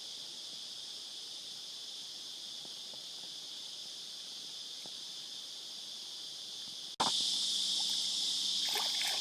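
A steady, unbroken chorus of insects in the bush, shrill and high. About seven seconds in it cuts out for an instant and comes back louder, joined by a low steady hum.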